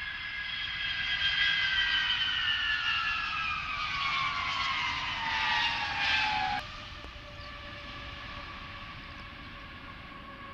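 Turbofan engines of a Lockheed C-5 Galaxy whining as it passes close by on landing, the whine sliding steadily down in pitch. About two-thirds of the way through the sound cuts off suddenly, and a quieter, steady engine whine follows.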